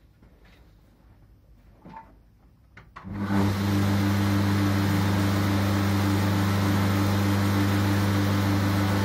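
A few small clicks and knocks, then about three seconds in a belt grinder's electric motor switches on and runs steadily with a hum and the whir of the abrasive belt, with no blade on the belt yet.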